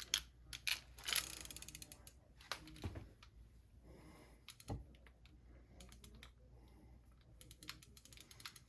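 Small clicks and taps of a screwdriver and metal parts on a Penn 320 GT2 conventional fishing reel, with a short run of rapid ticking about a second in. Near the end a fast, even ratcheting click from the reel's mechanism begins.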